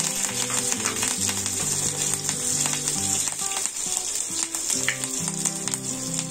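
Green chillies and cumin seeds frying in hot oil for a tempering (tadka): a steady sizzle with scattered small crackles.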